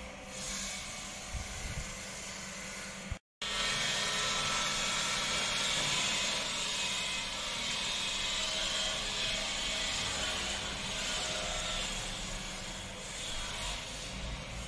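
Steady machinery noise with a strong hiss, cut off for an instant about three seconds in and then running on louder.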